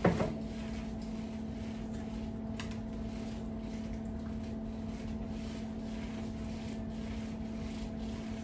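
A steady electrical hum, with faint soft handling noises as cooked chicken is pulled off the bone by hand, and one small click about two and a half seconds in.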